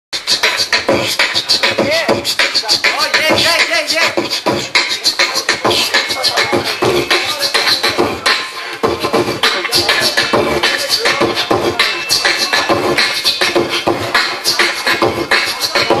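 Human beatbox: one performer making rapid vocal drum sounds (kick, snare and hi-hat clicks) in a steady fast rhythm into a handheld microphone, with pitched vocal tones that slide up and down woven through the beat.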